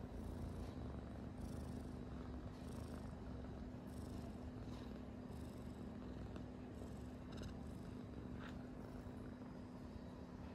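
Kitten purring steadily and continuously, with a steady low hum underneath.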